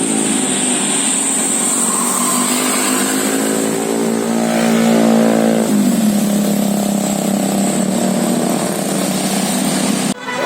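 A vehicle engine running steadily, then accelerating with its pitch climbing for a couple of seconds before dropping sharply, like a gear change. A thin high whine runs over it. The sound cuts off abruptly near the end.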